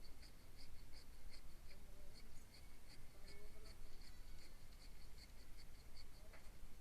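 Cricket chirping: quiet, evenly repeated high chirps, about four a second, over a low background hum.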